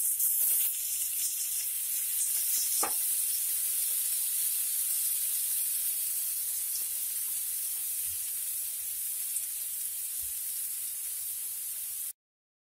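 Diced tomatoes sizzling in hot oil with fried onion and garlic in a small non-stick frying pan as they are stirred with wooden chopsticks. The sizzle is loudest just after they go in, then settles to a steady hiss, with a single click about three seconds in, and cuts off suddenly near the end.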